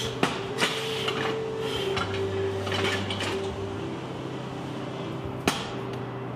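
Steel car-deadlift lever rig clanking as it is pulled through reps, with sharp metal knocks, the loudest one near the end, over a steady background hum.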